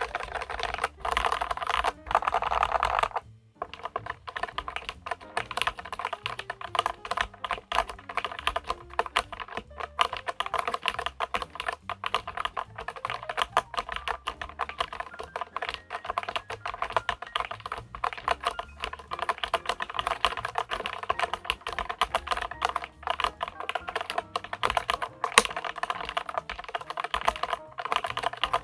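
Fast typing on a LEOPOLD FC660MBT mechanical keyboard, a dense, steady stream of key clacks.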